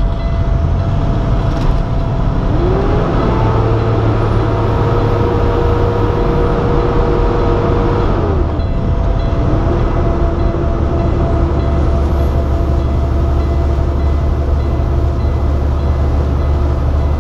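Truck engine and road noise at highway speed, heard from inside the cab as a steady low drone. A whining tone rises about two and a half seconds in, holds, falls away around eight seconds, and comes back a second later.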